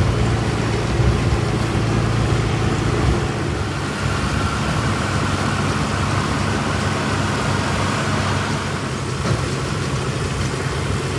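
Farm tractor engine running steadily, with a higher steady whine joining in about four seconds in.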